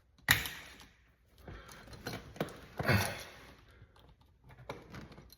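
Clicks and scraping from handling a wall outlet: the plastic-and-metal receptacle being pushed and lined up in its electrical box with a screwdriver. There is a louder scrape just after the start and another about three seconds in, with scattered sharp clicks between and after.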